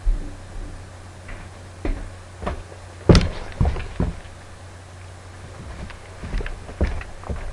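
Irregular knocks and thumps of a person moving and stepping close to the microphone, loudest about three seconds in, with a steady low hum underneath.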